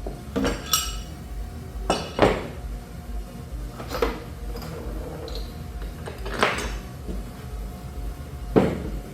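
Metal bolts clinking and knocking against the drive-unit housing as they are set in place, about six separate clinks a second or two apart, some with a short metallic ring.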